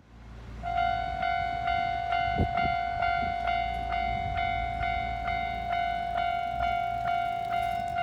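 Japanese railway level crossing warning bell starting to ring: electronic dings about two a second over a steady tone, under a low rumble of traffic.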